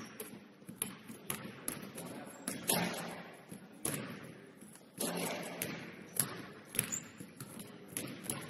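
Basketballs bouncing on a hardwood gym floor in irregular thuds, several louder ones ringing out with a long echo in the large gymnasium.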